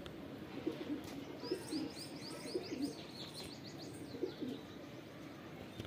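Pigeons cooing, low calls repeating every second or so. From about one and a half seconds in, a small bird gives a quick run of high chirps for about two seconds.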